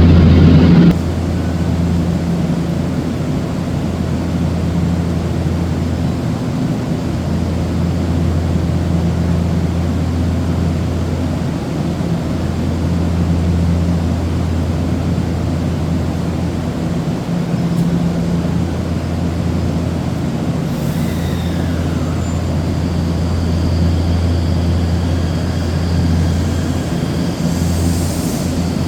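Steady low hum of an Odakyu 8000 series electric train standing at the platform, with faint higher tones joining near the end.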